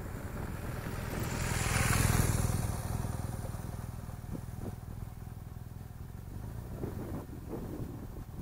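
BMW R1200GS Adventure's flat-twin engine as the motorcycle rides past close by, loudest about two seconds in, then fading steadily as it rides away.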